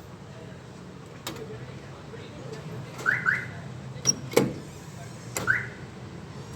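Power door locks of a Mitsubishi L300 van being worked during a lock/unlock test: sharp clicks of the lock actuators, with the alarm giving short rising chirps, a quick double chirp about three seconds in and a single one near the end.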